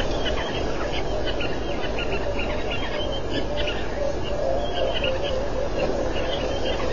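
Outdoor animal chorus: many short chirping calls over a dense, steady background, with one drawn-out call in the middle.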